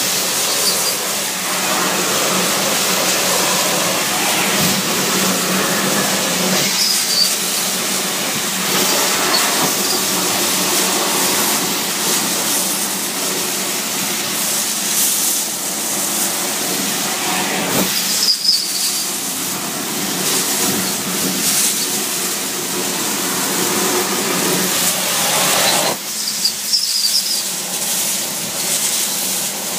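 Steady loud rush of air being drawn into a vacuum truck's suction hose and nozzle, over a constant hum, with a few brief dips in the noise.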